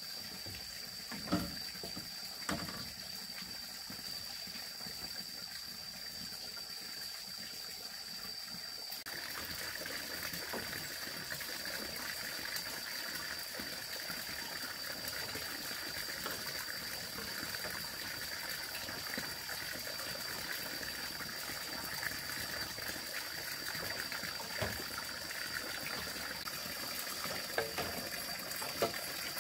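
Running water trickling, growing louder and brighter about nine seconds in, over a thin steady high tone. Two knocks sound in the first few seconds.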